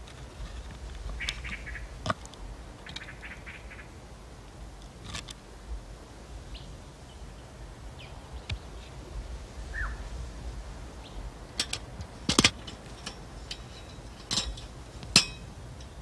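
Hand tools clicking and knocking against wood and metal in scattered single strikes, the loudest near the end, with a few short bird chirps between them.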